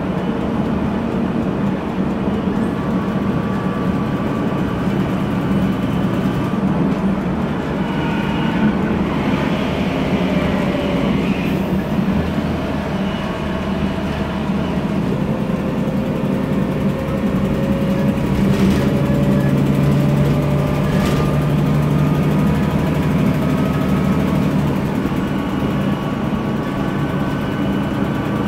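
Interior drone of a MAN Lion's Classic city bus under way: its MAN E2876 turbocharged CNG engine running, with whine from the ZF Ecomat 6HP504C six-speed automatic gearbox. Faint whining tones slowly rise in pitch partway through, and a couple of light clicks sound near the end.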